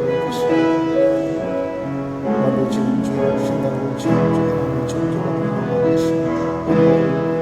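Slow instrumental music on a keyboard instrument, sustained chords changing about once a second, played softly under congregational prayer.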